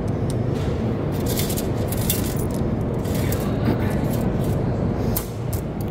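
Coins clinking as they are fed one at a time into a metro ticket machine, a string of short, irregular clicks over steady background noise.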